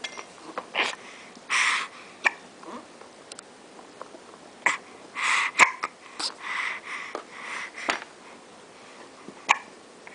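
Repeated hiccups: sharp, short jerks coming irregularly about every one to two seconds, with breathy, sniffing bursts of air between them.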